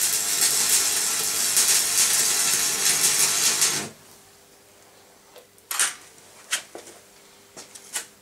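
Electric arc welding on steel: a steady crackling hiss that stops abruptly about four seconds in, followed by a few short, sharp clicks.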